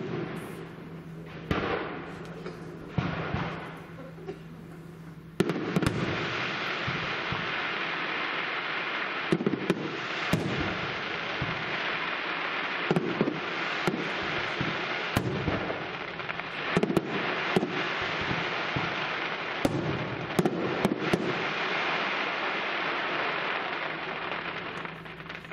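Aerial fireworks display: a few shell bursts with sharp reports in the first seconds, then from about five seconds in a loud, dense, continuous crackling with scattered sharper bangs through it, which dies away just before the end.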